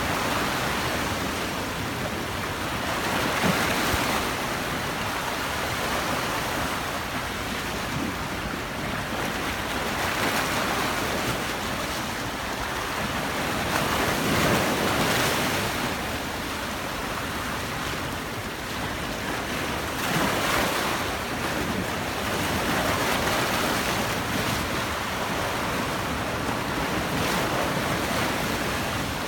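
Black Sea surf: waves breaking and washing on the shore in a continuous rush, swelling louder every few seconds as each wave comes in.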